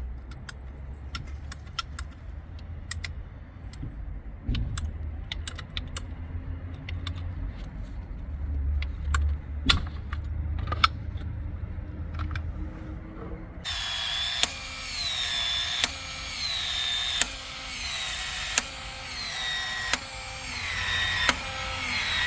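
Battery PEX expansion tool running through its expansion strokes: a motor whine that falls in pitch with each stroke, about once every second and a half, starting about 14 seconds in. Before it, a low rumble with scattered light clicks.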